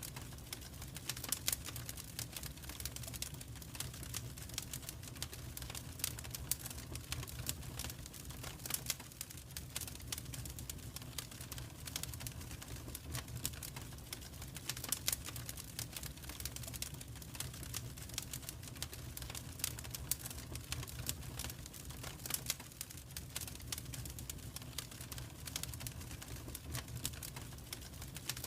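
Fire crackling in a fireplace: irregular sharp pops and snaps over a low steady rumble.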